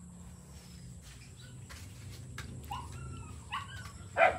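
A dog barking: a couple of short yips, then one louder bark near the end.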